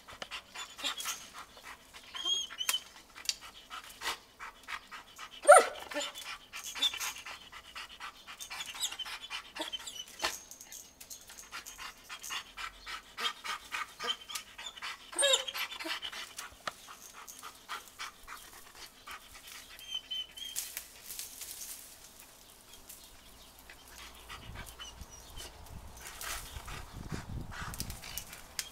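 A dog panting hard and fast, with a short, high, rising whine about five seconds in and again about fifteen seconds in.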